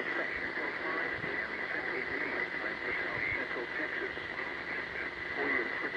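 NOAA Weather Radio broadcast heard through a receiver: a steady static hiss with a constant high whine, and a faint, muffled voice underneath.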